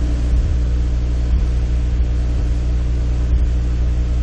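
A steady low hum, unchanging in pitch and level, with a faint even hiss over it.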